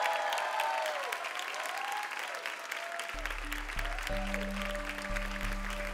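Audience applause, a dense patter of clapping, as the last sung notes fade out in the first second or so. About three seconds in, a low, sustained music bed comes in under the clapping.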